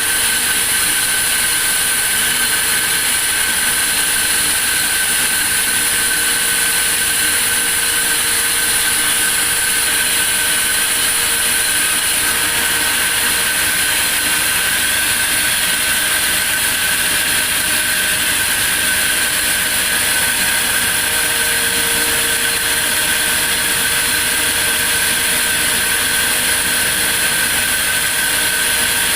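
Sawmill saw running steadily: a constant high whine over a loud hiss that does not change.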